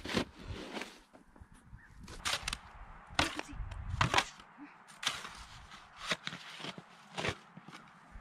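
Snow shovels digging into deep snow: short crunching scrapes, about a dozen in irregular strokes, as snow is scooped out to clear a fire pit.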